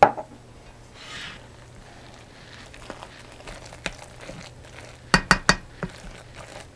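A spatula stirring moist bread stuffing in a ceramic mixing bowl: soft scraping and squishing with scattered light knocks, then a quick run of about four sharp clicks of the spatula against the bowl about five seconds in.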